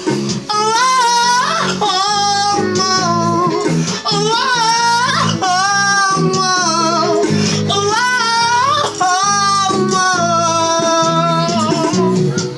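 Song played on guitar, with a high singing voice holding long, wavering notes that slide up into each phrase.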